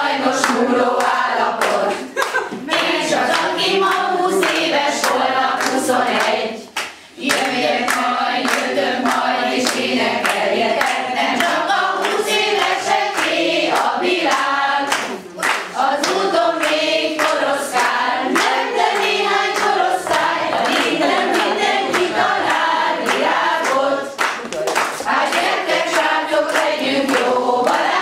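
A group of women singing a song together in unison, unaccompanied, with hands clapping along, and a brief break about seven seconds in.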